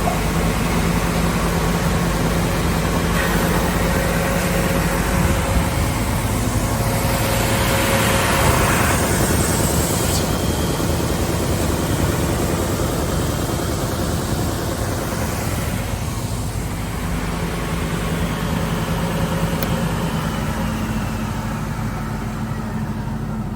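SCM Sandya 3S wide-belt sander running under load with workpieces: a steady motor hum under a broad sanding hiss, which swells louder and brighter about seven to nine seconds in.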